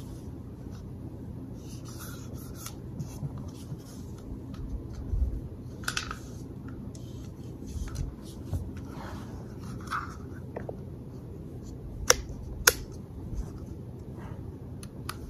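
Hands cleaning and handling the parts of a disassembled IWI Uzi pistol, with a cleaning rod: light rubbing and scraping with scattered small clicks. Two sharp clicks just after twelve seconds in are the loudest sounds.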